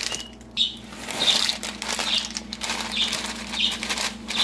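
Thick plastic pasta bag crinkling and rustling as it is pulled open and shaken, with a run of sharp crackles, while dry pasta shells spill out into a pan of water.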